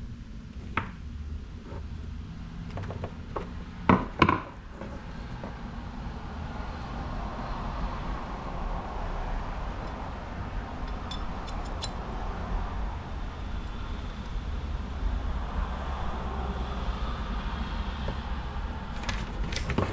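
Metal furnace parts being handled and fitted together: scattered knocks and clicks, two loud knocks about four seconds in, over a steady low hum.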